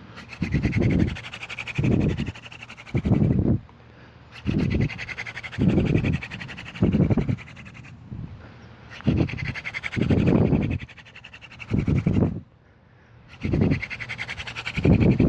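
Horseweed hand drill spun between the palms into a horseweed hearth board to work up an ember: rhythmic rubbing and scraping in runs of a few seconds, each with about one swell a second, broken by short pauses about every four seconds as the hands go back to the top of the drill.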